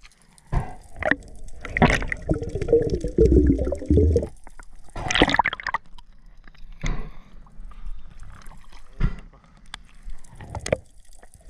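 Water splashing and gurgling in irregular bursts, with a longer gurgling stretch about two seconds in.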